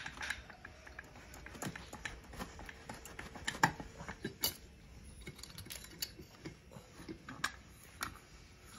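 Light, irregular metallic clicks and taps of two-stroke motorcycle engine parts being handled and fitted on a bare aluminium crankcase during assembly, with two sharper knocks a little past the middle.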